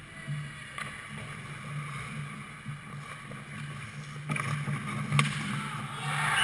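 Skates scraping on ice as a shooter closes in on the goal over a steady low hum, with a sharp crack about five seconds in as the puck is shot on the goalie. A louder scrape swells near the end and cuts off suddenly.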